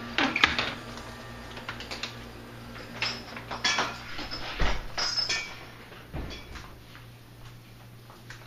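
Scattered clicks and knocks, with one low thump about halfway through, from someone walking through a house with a handheld camera: footsteps and handling noise.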